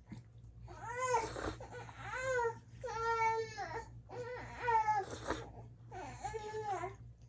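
An infant crying: five separate wailing cries in a row, each rising and falling in pitch.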